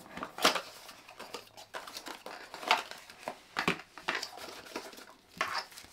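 Small cardboard accessories box being opened by hand: irregular rustling, scraping and light taps of thin card as the lid comes off and the inner tray is slid out.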